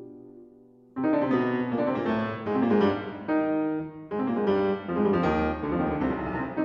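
Background piano music: a soft chord fading away, then a fuller passage of notes starting about a second in.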